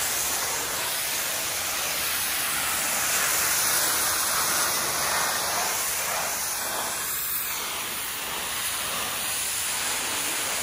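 High-pressure water jet from a Promac M36 3600 PSI pressure washer's lance blasting mossy concrete and stone: a steady hiss of spray.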